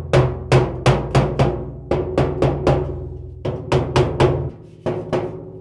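A rubber mallet gently tapping a steel drum lid into the end of a steel barrel: a long series of strikes, about two to three a second with a couple of short pauses, each ringing briefly in the metal.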